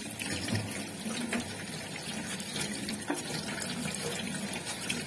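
Tap water running and splashing steadily as a turtle is rinsed under it, with small scattered knocks.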